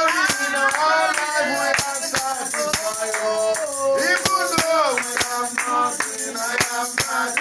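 Worship song: voices singing held, sliding notes over percussion that strikes a steady beat.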